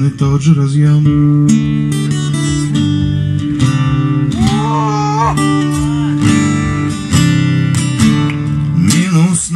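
Instrumental music led by acoustic guitar, with steady held low notes underneath and a brief wavering melody line about halfway through.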